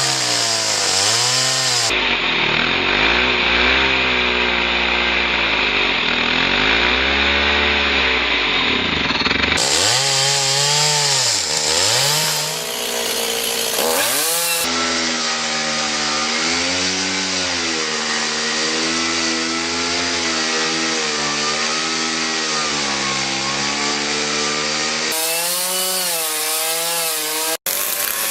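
Two-stroke chainsaw running and cutting log timber, its engine pitch rising and falling as it revs and bogs down in the cut, across several abruptly spliced stretches.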